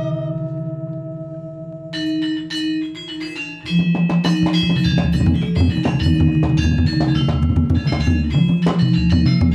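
Balinese gong kebyar gamelan playing. Held ringing bronze tones fade away, and a few struck metallophone notes sound about two seconds in. Just under four seconds in, the full ensemble of bronze metallophones, gongs and kendang drums comes in loudly and plays on in fast, dense strokes.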